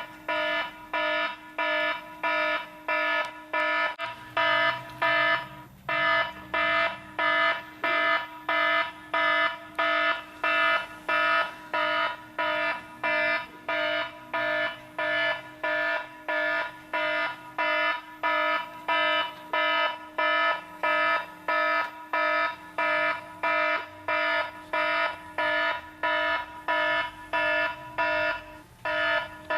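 Model railway level-crossing warning bell ringing: an even, unbroken train of ringing dings at about one and a half strokes a second.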